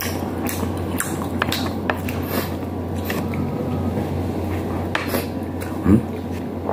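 Eating with bare hands: scattered wet chewing and lip-smacking clicks and light taps of fingers on a plate, over a steady low hum. A louder soft thump comes near the end.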